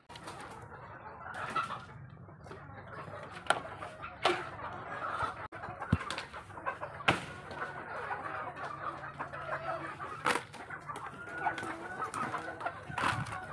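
Chickens clucking, with a handful of sharp knocks and clicks spread through.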